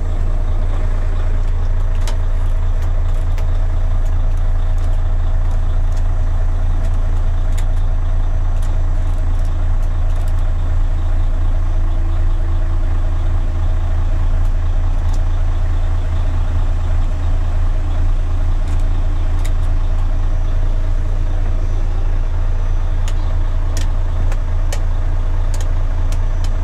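Mercedes-Benz Actros 1843's V6 diesel engine idling steadily, a constant deep rumble heard from inside the cab. A few faint clicks are scattered through it.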